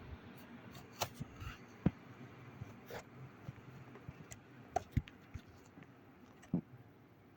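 Irregular light clicks and ticks, about eight of them spread unevenly, over a faint steady hum.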